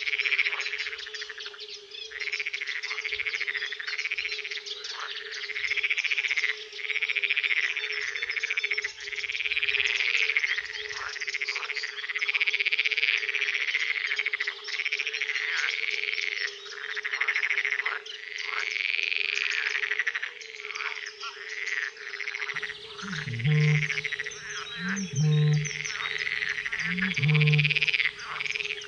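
Night chorus of pond frogs, dense overlapping croaking calls repeating every second or two over a steady lower hum from more distant callers. From about 23 seconds in, a Eurasian bittern joins with deep booms about every two seconds.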